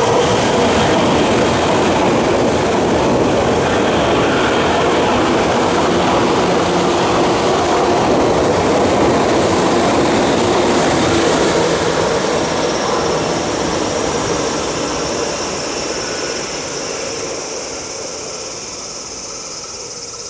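Tokyu 8500 series electric train running, its traction motors and wheels making a loud, steady noise with held tones in it, growing gradually quieter over the last several seconds.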